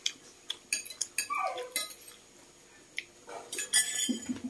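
Metal spoons clinking against ceramic bowls and a metal pot during a meal: a string of short, sharp clinks, with a brief falling squeak about a second and a half in.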